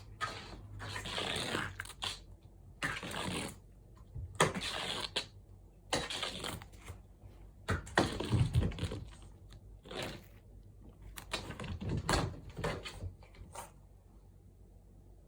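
Repeated rustling swishes and bumps, in bursts of about a second each, from cats playing with a Da Bird feather wand toy.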